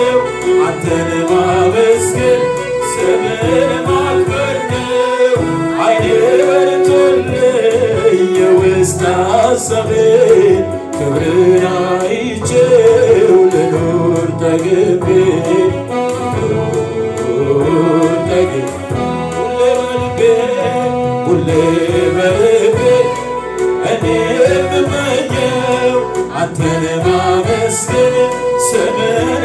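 A man singing an Amharic gospel worship song into a handheld microphone, with long sliding melodic lines over a musical accompaniment.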